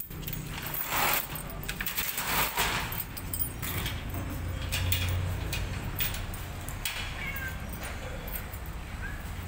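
Rustling and knocking for the first few seconds, then a few faint, short cat meows near the end.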